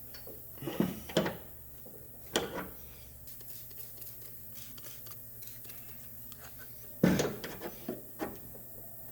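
Scattered short clicks and knocks of glue-pull tabs and hand tools being handled on an aluminum panel, a few near the start and a cluster near the end, over a low hum that stops about a third of the way in.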